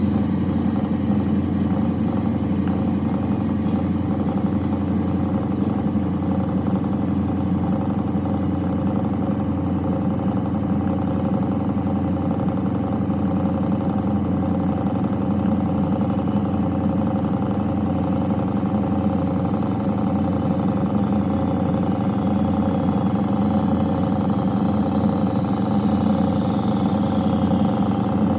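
Diesel engine running steadily.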